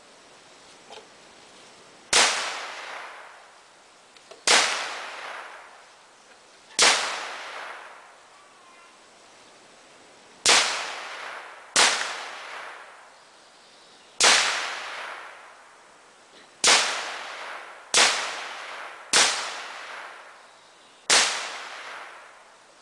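Gunshots fired one at a time at hanging bottle and can targets, ten shots at uneven gaps of about one to four seconds, each followed by a long echo that trails off.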